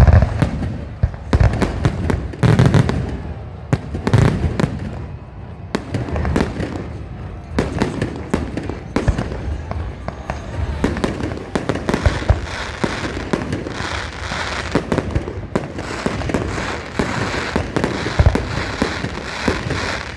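Fireworks display: a continuous barrage of booming and cracking explosions, many bangs a second, turning into a denser crackle of small bursts in the second half.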